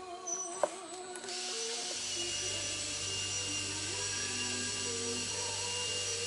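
A sharp click, then an electric hot-air blower starting about a second and a half in and running steadily, drying out the inside of a waterlogged HID headlight housing.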